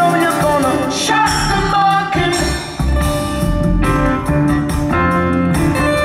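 Live band playing a rock song through a concert PA, with some singing.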